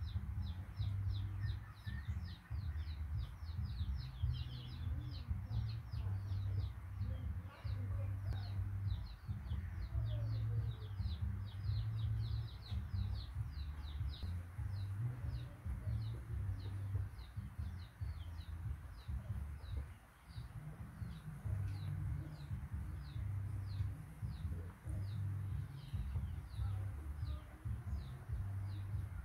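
A bird chirping over and over, short high chirps a few a second, growing sparser later on, over a steady low hum.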